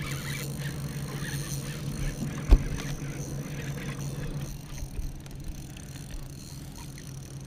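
Boat motor humming steadily, easing off a little after halfway, with one sharp knock about two and a half seconds in and a few light clicks.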